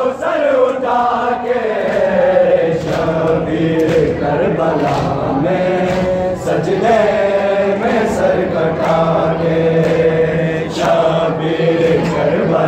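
Group of men chanting a noha, a Shia lament, in unison, with long held, sliding notes. Under the voices a steady beat, a little faster than once a second, from hands striking chests in matam.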